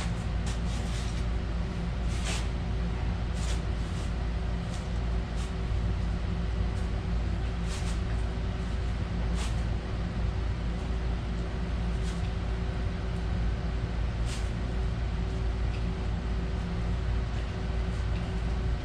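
Heat gun running with a steady hum, warming an old handlebar grip to loosen it, with scattered clicks and taps from handling the part.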